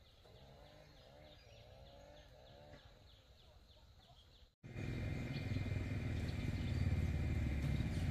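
Outdoor farm sounds: a bird chirping over and over, about twice a second, with some lower animal calls. Just after halfway the sound cuts, and a much louder low, rough rumble with a steady high tone takes over.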